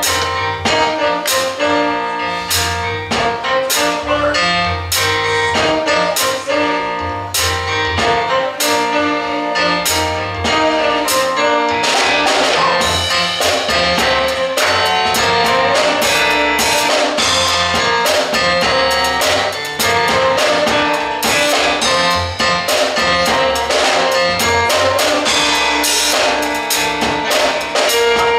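Live gospel music: a drum kit keeps a steady beat under held instrumental chords, and the sound grows fuller about twelve seconds in.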